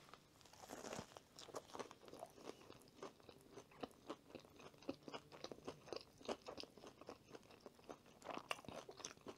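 Faint chewing of a mouthful of Korean chicken sandwich: a string of soft, irregular crunches and mouth sounds.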